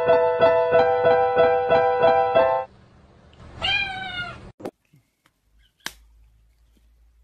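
Electronic keyboard sounding the same chord over and over, about three times a second, then stopping abruptly. A second later a cat gives one short meow, followed by two short sharp clicks.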